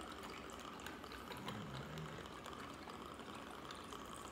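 Orange juice being poured from a bottle into a glass of ice: a faint, steady pour with a few small clicks.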